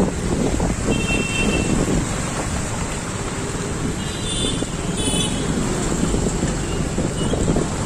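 Wind rumbling on the microphone over street and traffic noise, with a few short high chirps about a second in and again around four to five seconds.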